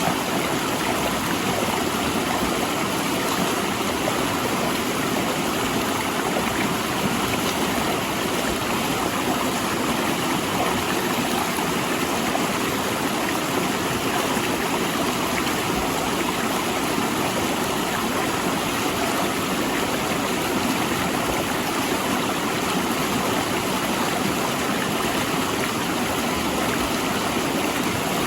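Mountain river rushing over and between large rocks: a steady, loud wash of flowing water.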